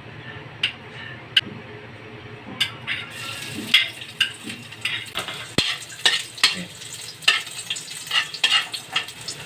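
Garlic frying in oil in a pan, sizzling, while a spatula scrapes and taps against the pan as it is stirred. The sizzle grows louder about three seconds in.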